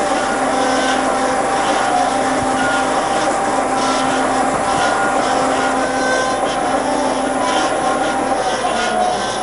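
Kasto Twin A4 double-column automatic bandsaw running its programmed cut at slow blade speed: a steady machine drone with a constant hum from the blade drive.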